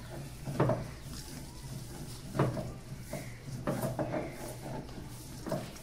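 A slaughtered chicken's skin, feathers still attached, being torn off the carcass by hand: a few short tearing sounds, the loudest about half a second in and again near two and a half seconds.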